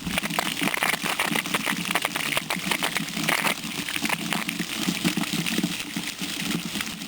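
Water gushing out of an open sprinkler riser on an irrigation line, spraying and splashing steadily as the line is flushed of dirt, with constant crackling spatter.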